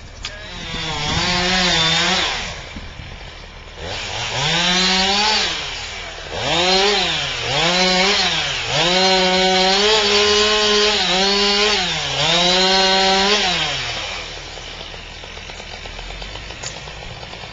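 Chainsaw engine revving up and down through about five bursts of cutting, each rising in pitch, holding, then dropping back. It stops about three-quarters of the way in, leaving a quieter steady background.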